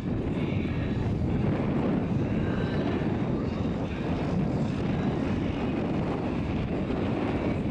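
Car engines idling with a steady low rumble as a Dodge Challenger and another car creep up to the drag strip's starting line.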